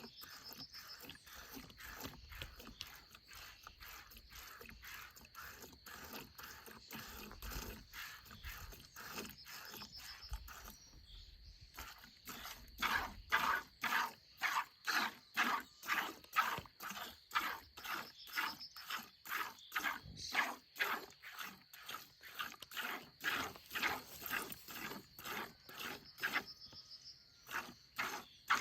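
Cow being milked by hand: short hissing squirts of milk in a steady rhythm of about two a second, pausing briefly and then coming louder about halfway through.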